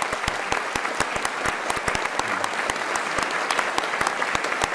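An audience applauding, many hands clapping steadily and densely in an auditorium.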